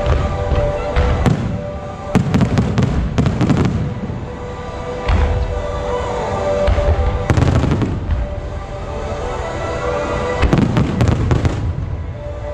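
Aerial fireworks going off in repeated volleys: low booms of shell bursts mixed with dense sharp crackling reports, with music playing underneath.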